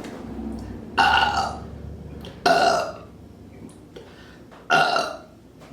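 Three short burps from a woman, a second or two apart, brought up on command after chugging a bottle of ginger ale.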